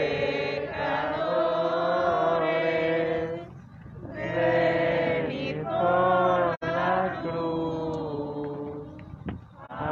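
A group of voices singing a religious hymn together in long phrases with short pauses between them.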